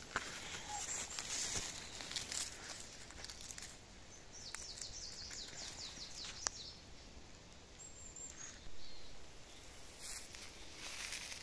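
Rustling of grass and leaf litter with footsteps as someone moves through forest undergrowth, with a few sharp clicks of twigs or stems.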